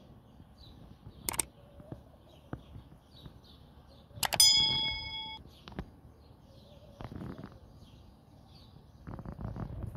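A sharp mouse-click sound effect about a second in, then a click and a bell ding ringing for about a second at four seconds in, from the video's animated subscribe-bell graphic. Faint birds chirp throughout, with some rustling near the end.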